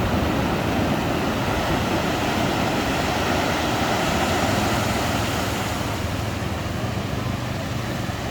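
Ocean surf washing onto a sandy beach: a steady rush of breaking waves that eases slightly over the last few seconds.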